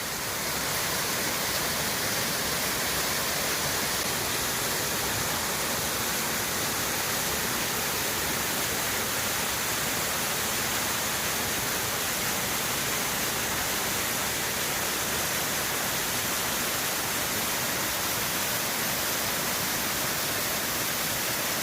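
Waterfall rushing close by: a steady, even roar of falling water.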